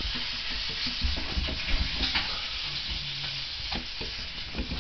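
A cat's paws scratching and rubbing against window glass, a rapid run of scratchy strokes with a few dull bumps as it paws at the pane.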